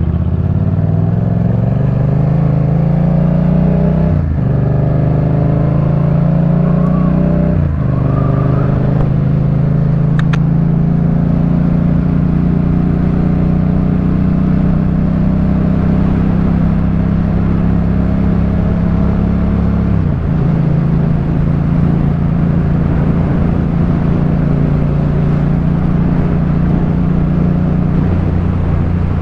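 Yamaha MT-07's 689 cc parallel-twin engine running through a Jeskap K4 full exhaust system while riding. It pulls up through the gears with two sharp drops in pitch at upshifts, about four and eight seconds in, then holds a steady cruising note, with a brief dip about twenty seconds in.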